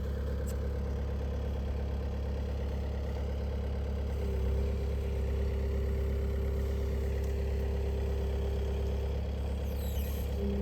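Farm tractor engine running steadily at idle, a constant low hum. A steady higher whine joins it for about five seconds from around four seconds in, and starts again near the end.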